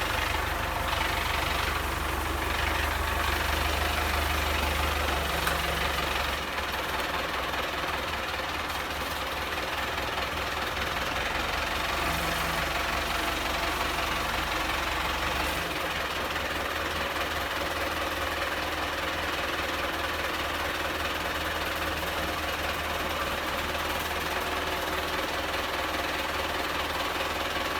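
Belarus MTZ 820 tractor's diesel engine running steadily with a rapid, even firing beat. The low rumble eases slightly about six seconds in and again around sixteen seconds.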